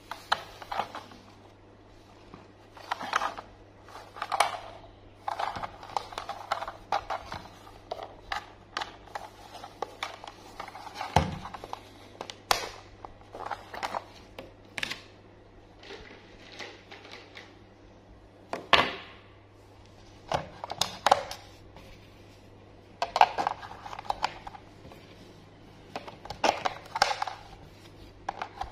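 Hard plastic handling noises from a battery-powered plastic Thomas toy engine: irregular clicks, scrapes and rattles as its battery cover is taken off and AA batteries are pressed into the compartment. A faint steady low hum runs underneath.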